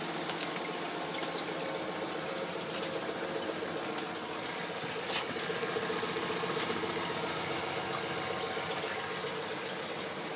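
Belt-driven refrigeration compressor of a home-built chiller running steadily: a continuous hum with a high whine and a hiss over it, a little louder in the second half.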